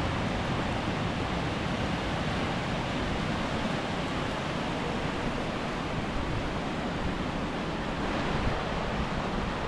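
Caspian Sea waves washing onto the shore, a steady rush of surf.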